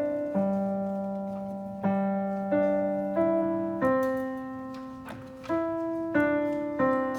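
A piano plays a slow, simple beginner's melody, about eight notes struck one at a time in an uneven rhythm. Each note fades slowly and keeps ringing into the next.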